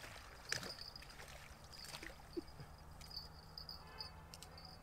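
Faint, high insect chirping in short repeated trills over a low trickle of river water, with a few soft clicks.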